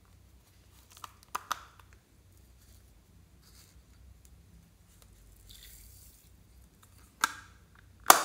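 Plastic lollipop-shaped compact case being handled: a few light clicks about a second in as its lid is opened, a soft rustle midway, then two sharp plastic snaps near the end as the lid is clicked shut.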